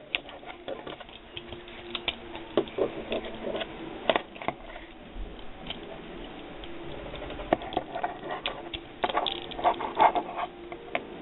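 Plastic joints and parts of a Transformers wolf action figure clicking and snapping irregularly as it is twisted and transformed by hand.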